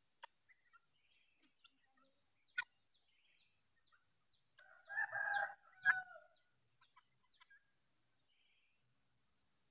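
Domestic fowl calling: one louder call about five seconds in, lasting about a second, with a short call right after it. Faint short chirps and a few clicks are scattered through the rest.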